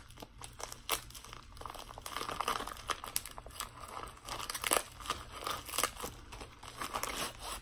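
Plastic poly mailer bag being pulled open by hand: the thin plastic crinkles and rustles throughout, with many small sharp crackles.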